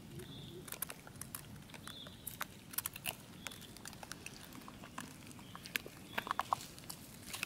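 Long-tailed macaques picking at and chewing food on stone ground: scattered small clicks and crackles, with a quick cluster of them about six seconds in.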